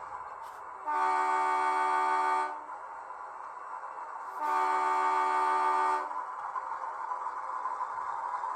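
DCC sound decoder of an HO-scale model SAR 900 class diesel-electric locomotive sounding its multi-tone horn twice, each blast about one and a half seconds long, over a steady hum.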